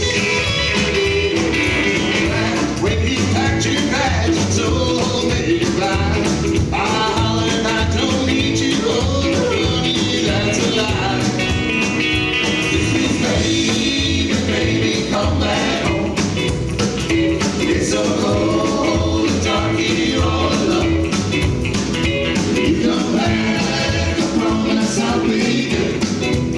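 Rockabilly band playing a song live: electric guitar over a steady beat, with singing.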